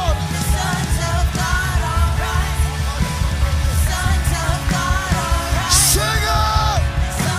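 Live worship band playing with a strong bass and drums, a singer's wordless vocal lines gliding over it.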